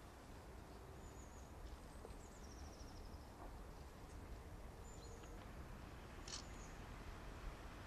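Faint birdsong: a few short high chirps and one quick descending trill, over a steady low rumble.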